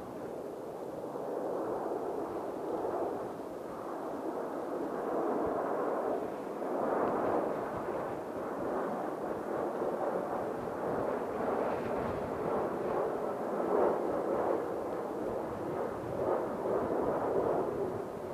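Jet airliner engine noise: a rough, rushing rumble that builds over the first two seconds and then wavers in loudness.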